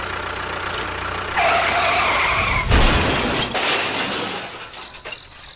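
A steady low motor hum. About a second and a half in, a loud screech takes over, and it ends in a crash with a heavy thud that dies away over the next two seconds.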